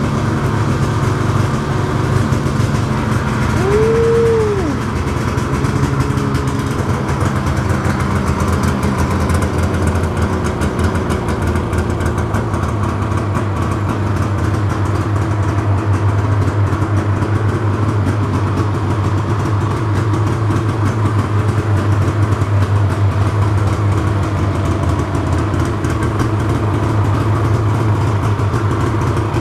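2013 Arctic Cat M8 snowmobile's 800 cc two-stroke twin, fitted with an aftermarket Diamond S exhaust can, running steadily at idle just after start-up. There is one short rise and fall in pitch about four seconds in.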